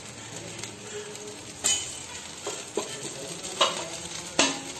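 Dosa batter sizzling on a hot iron tawa, with a few sharp clinks and knocks of metal utensils.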